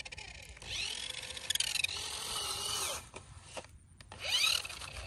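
Small electric motor and gearbox of a toy radio-controlled off-road truck whining in bursts, the pitch rising and falling as it drives. It drops away for about a second partway through, then comes back for a short last burst.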